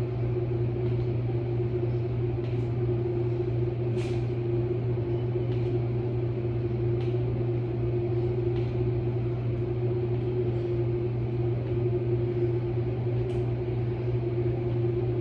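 Steady low mechanical hum with a constant tone in a small tiled room, with a few faint ticks now and then.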